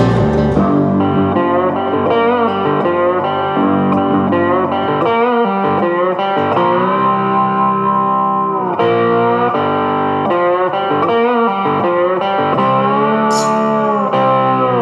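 Background music led by a guitar, with held notes that bend in pitch.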